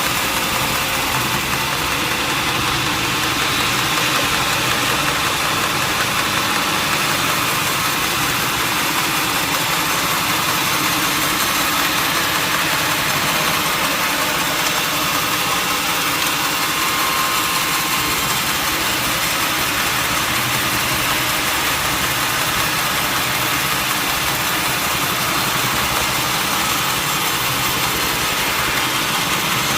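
Sawmill saw machinery running steadily, a constant loud drone with a hiss over it and no breaks.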